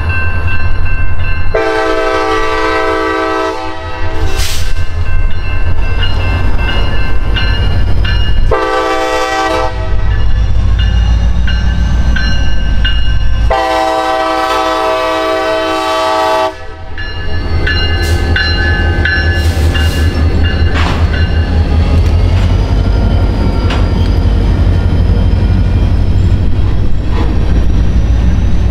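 Diesel freight locomotive's air horn sounding three blasts, long, short, then long, over the heavy low rumble of the train running.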